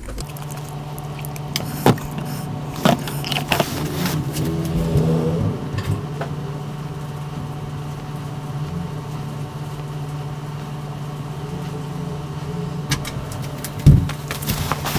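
A steady low electric hum from an appliance or motor, with a few scattered clicks and a louder knock near the end.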